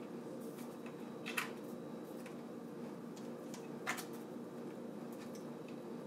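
Light rustling and clicks of PC cables being handled and pushed into place inside a computer case, with two sharper clicks about a second and a half in and near four seconds, over a steady low hum.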